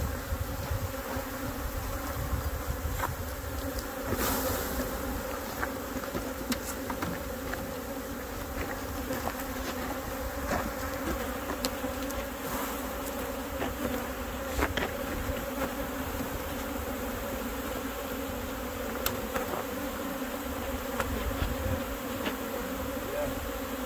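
Steady buzzing of a large mass of honey bees, many of them flying, around a shaker box full of freshly shaken bees. A few faint ticks are scattered through it.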